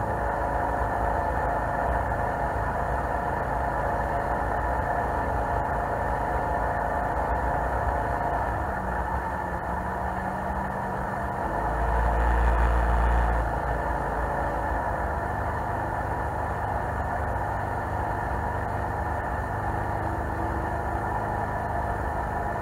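Jet boat engine running steadily while the boat is under way, heard from the boat's own bow. About twelve seconds in, a louder low rumble lasts a second or two.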